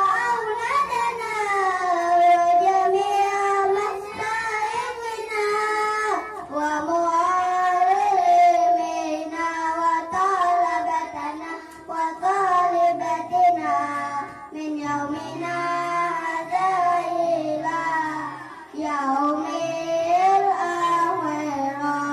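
Children's voices singing a slow, melodic song through a microphone and PA, in long held phrases with brief breaks about every six seconds.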